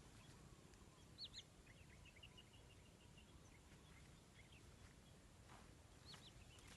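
Near silence with faint bird calls: a pair of short high chirps about a second in, a run of quick small chirps after them, and another pair near the end.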